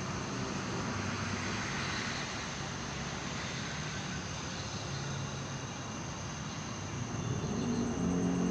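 Steady hiss and low rumble of distant city traffic. A low engine drone grows louder near the end.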